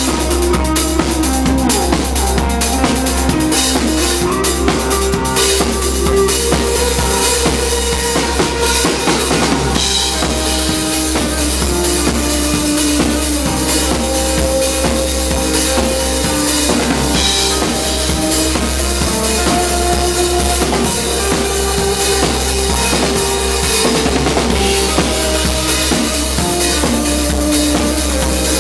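Live rock band playing loud and without a break: a drum kit with constant cymbals under an electric guitar line that moves between held notes.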